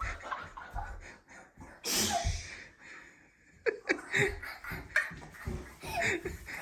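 People laughing in short breathy bursts, with one sharp burst of breath about two seconds in, a brief lull, then quick repeated laughs toward the end.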